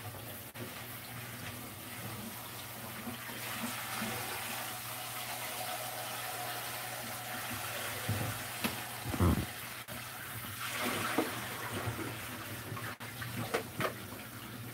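Kitchen tap running onto mung bean sprouts being rinsed in a plastic colander, water splashing into the sink basin. There are a few louder splashes a little past halfway as the colander is moved.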